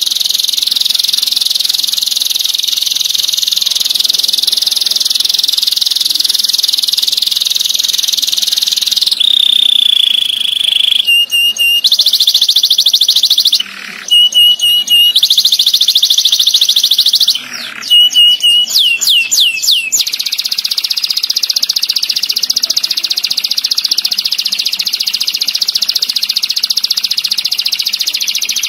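Domestic canary singing: a long, very fast rolling trill. About nine seconds in it breaks into a held whistle, then sharp repeated chirps and a quick run of falling whistled notes, before the rolling trill returns.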